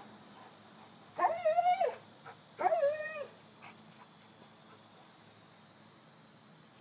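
Cane corso puppy giving two high-pitched whines about a second and a half apart.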